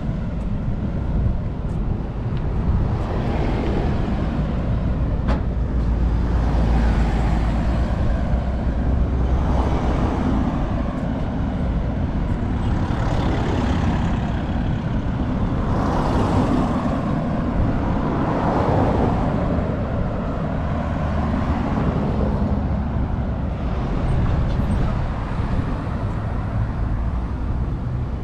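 Road traffic: cars and a van passing one after another along a two-lane street, each swelling and fading over a few seconds, over a steady low rumble.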